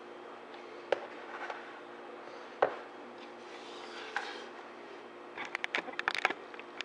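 Kitchen handling noise at a mixing bowl: a few single sharp knocks, then a quick run of clatters about five and a half seconds in, as frosting and cake are worked in the bowl. A steady low hum runs underneath.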